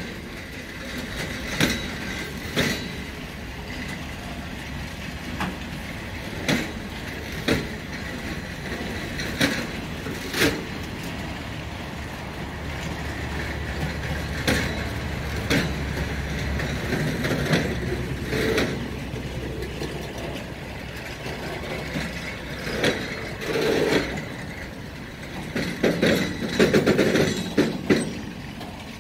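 Freight train of open-top gondola wagons rolling past, with a steady rumble and sharp wheel clacks over the rail joints. The clacks come in pairs about a second apart, and the rumble swells louder near the end.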